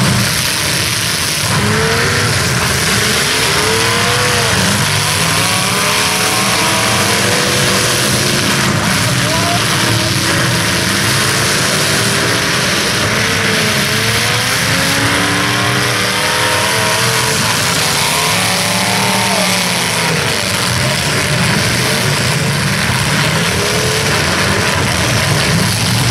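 Several demolition derby cars' engines running hard and revving through open exhaust headers, a continuous loud din with overlapping engine notes rising and falling as the cars accelerate and back off.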